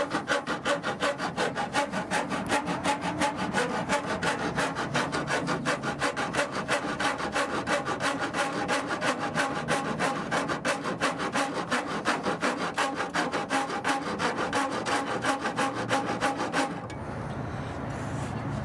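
Half-inch rat-tail rasp filing a notch into plastic grille trim, in rapid, even back-and-forth strokes of about four a second that stop shortly before the end.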